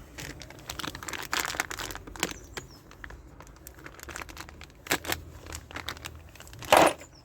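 Packaging crinkling and rustling as a new alternator decoupler pulley is taken out, with scattered clicks and a louder crinkle near the end.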